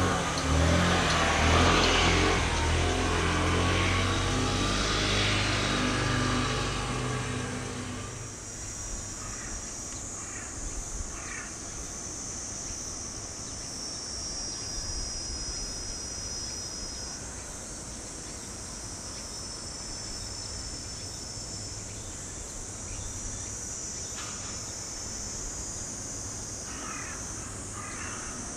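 A motor vehicle passing close by, its engine and tyre noise loudest in the first couple of seconds and fading away by about eight seconds in. After that comes quieter outdoor ambience with a thin, steady high-pitched tone, and crows cawing a few times, about ten seconds in and near the end.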